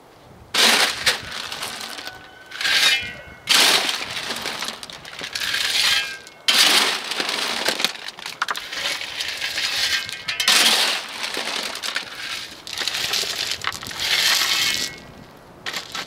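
A shovel scooping crushed gravel from a small ATV trailer and throwing it onto the ground: about six loud scrapes and gravelly rattles, each a second or two long.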